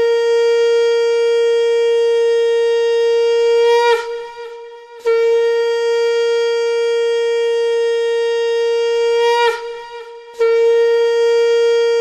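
Conch shell (shankha) blown in three long blasts on one steady note, with short breaks between them, each blast bending down in pitch as it tails off: the ritual conch call that invokes the goddess.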